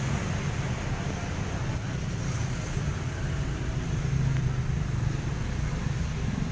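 Steady street traffic noise: a continuous low hum of passing road vehicles.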